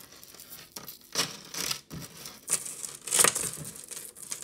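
Necklaces being handled: chains and a seed bead strand rustle, clink and slide across a leather-textured tabletop in a run of irregular scrapes, the loudest about three seconds in.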